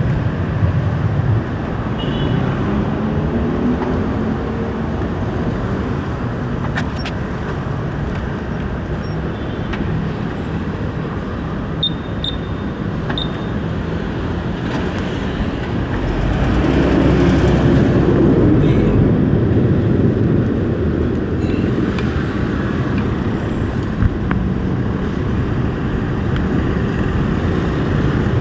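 Motorcycle engine running under way with wind and road noise. The engine note rises as it accelerates a few seconds in, and it gets louder again a little past halfway.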